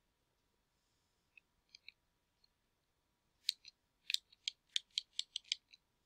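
Computer mouse scroll wheel ticking as a web page is scrolled down: a few faint ticks, then a quick run of about ten sharp ticks in the second half.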